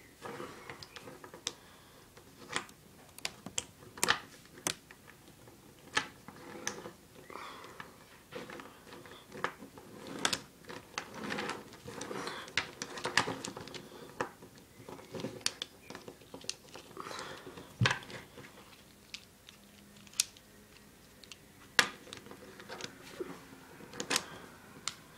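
Wooden snake cube puzzle being twisted and folded by hand: irregular clicks and light knocks of its small wooden blocks against each other and the wooden tabletop.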